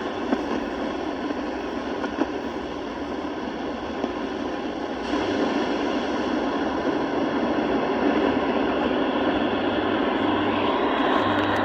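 Shortwave static and hiss from the Panasonic RF-B300 portable receiver's speaker as it is tuned down the band between stations; the hiss gets louder about five seconds in.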